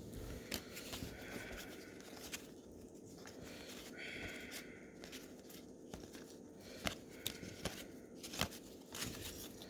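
Faint handling of 1990-91 NBA Hoops trading cards and their packs: scattered light clicks and short paper rustles as the cards are flipped through.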